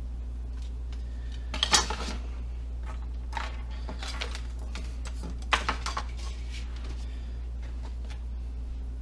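Small hard tools and parts being handled and set down on a workbench: two short clusters of clattering knocks, one about two seconds in and one a little past the middle, over a steady low hum.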